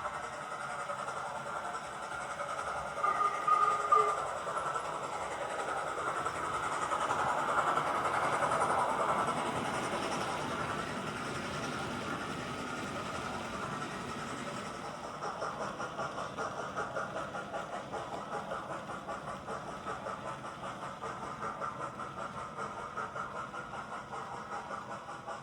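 A model train running on a model railway track. There are a couple of brief louder sounds about three to four seconds in. In the second half a fast, even beat sets in.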